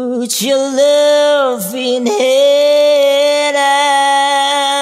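A lone voice sings long held notes that slide up and down in pitch, with no instruments behind it.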